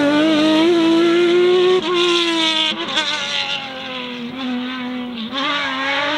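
Porsche 997 GT3 rally car's flat-six engine at high revs, pitch climbing slightly, then dropping about two seconds in as the sound gets quieter, and rising again near the end.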